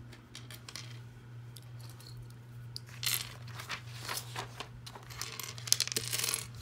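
LEGO pieces being handled and pressed into place: small plastic clicks and clatters, in a busy stretch about three seconds in and again near the end.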